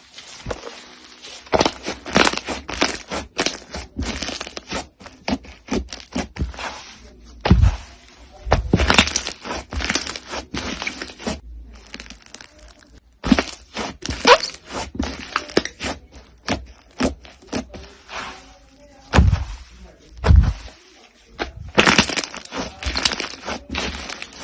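Crunchy slime being squeezed and pressed close to the microphone, giving dense runs of sharp crackles and pops, with a few short pauses. A handful of deeper squelching thumps come in the middle and again near the end.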